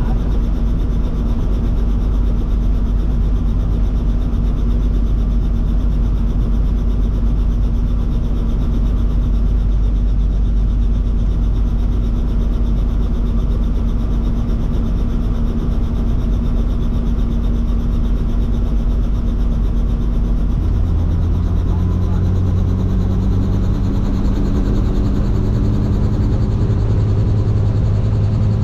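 Robinson R44 helicopter's piston engine and rotor running on the ground, heard from inside the cabin: a loud, steady low drone. About two-thirds of the way through it steps up in pitch and then keeps rising slowly as the engine and rotor speed up.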